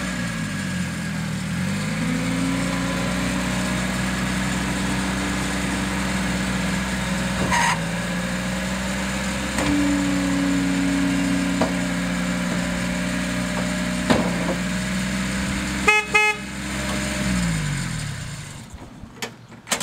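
Toro Workman 3200 utility vehicle's engine running. Its pitch dips and picks back up in the first two seconds, and it rises for a moment about ten seconds in while the dump bed is raised. Two short horn toots come about sixteen seconds in, then the engine winds down and shuts off near the end.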